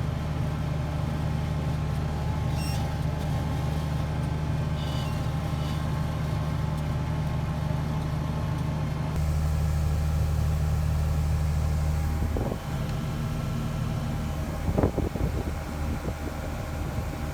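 Combine running steadily with a deep engine hum. About nine seconds in the hum steps lower and louder, and in the last few seconds it gives way to irregular knocking and rattling.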